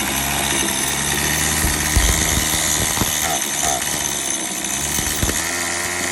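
Small two-stroke string-trimmer engine running while it warms up, fitted in a Power Wheels ride-on car. Its pitch dips about two seconds in and shifts again near the end, with a few sharp clicks.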